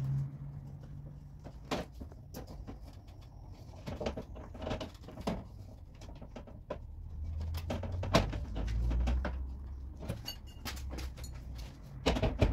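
Hands working inside a stripped car door: scattered light clicks, knocks and rattles from the door's inner metal shell and window glass, with a cluster of louder knocks near the end.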